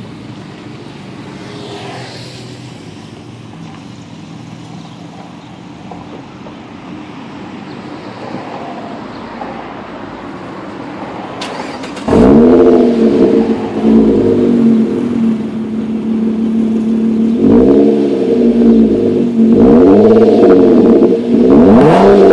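2009 Dodge Avenger's 2.7-litre V6 heard at the tip of a freshly fitted custom catback exhaust: it idles steadily at first. About halfway through it is revved again and again, each blip rising and falling in pitch and much louder than the idle.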